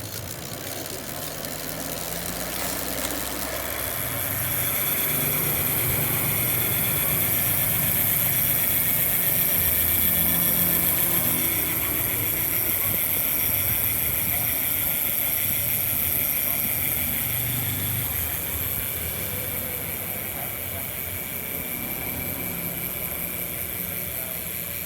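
Syncros XR2.0 rear hub freewheeling, its freehub ratchet buzzing steadily as the wheel spins and coasts. The buzz grows louder over the first few seconds and then slowly fades.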